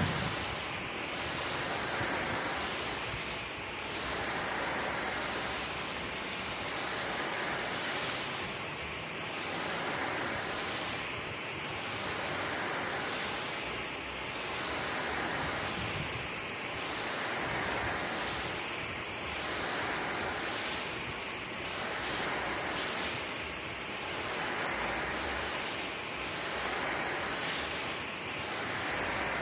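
Water spraying onto a lawn as it is watered, a steady hiss that swells and fades about every two and a half seconds as the spray sweeps back and forth.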